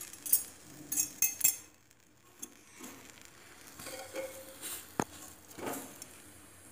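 A metal utensil clinking against a pressure cooker's pot as sweet potatoes are turned over on a bed of hot salt. A quick run of light clinks comes in the first second and a half, then scattered taps, with a sharper knock about five seconds in.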